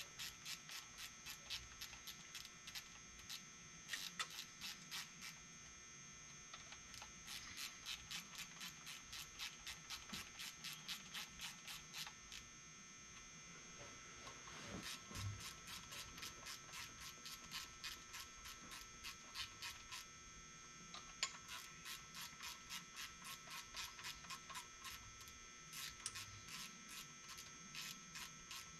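Ratchet wrench clicking faintly in quick runs of clicks with short pauses, as bolts on a diesel engine's valvetrain are turned.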